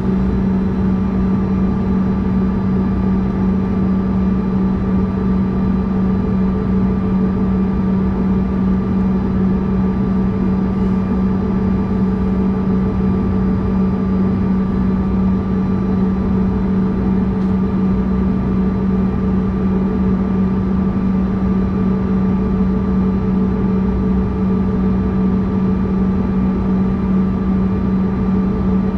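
Steady cabin drone of a CRJ-200 regional jet standing still with its rear-mounted General Electric CF34 turbofans at idle: a loud low hum with a constant thin whine above it.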